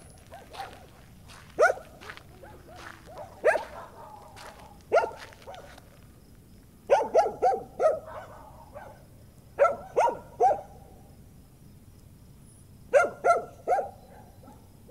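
Dogs barking in bouts. Single barks come every second or two at first, then quick runs of three or four barks with pauses of a few seconds between them. The dogs are upset.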